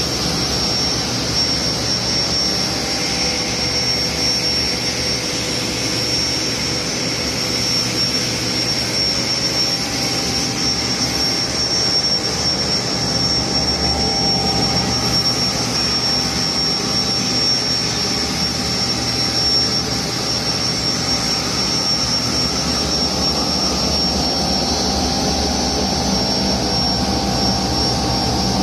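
A 30B universal grinder with dust removal running steadily while grinding dried garlic into 60-mesh powder: a loud, continuous machine noise with a high whine held throughout.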